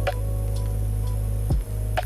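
Electronic background music: a steady low bass drone under held synth notes, with a sharp click right at the start and another about a second and a half in.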